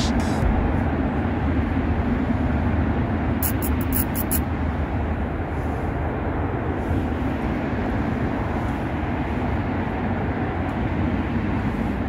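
Steady rumble of heavy road traffic from a busy main road, with a quick run of clicks about three and a half seconds in.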